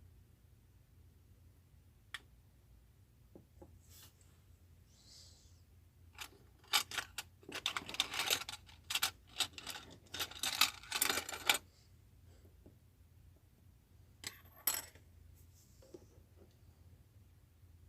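Small hard objects being handled: a few scattered clicks, then about five seconds of dense clattering and rustling starting some six seconds in, and a short double clatter near the end.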